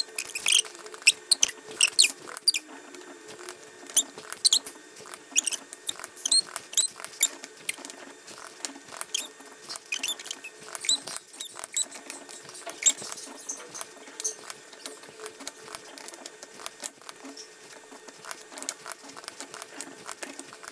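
Innfos Gluon robot arm's brushless joint motors being moved by hand in free mode, giving off irregular clicks and short high chirps over a steady hum. Near the end come light taps on laptop keys.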